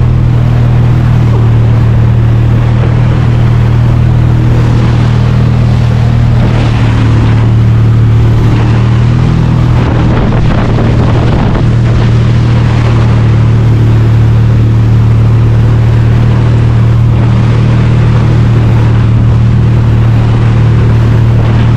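Motorboat engine running steadily at speed while towing a banana boat, a constant low hum, over the rush of churning wake water and wind on the microphone.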